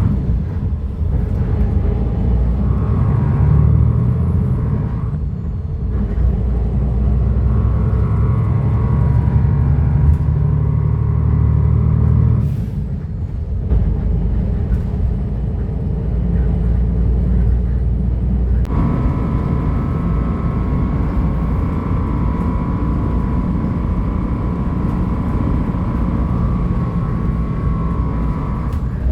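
Cummins diesel engine of a bus running, with a steady whining tone above the engine note: the strange noise this vehicle is known for. The engine note drops about twelve seconds in, and the whine grows stronger from about nineteen seconds in.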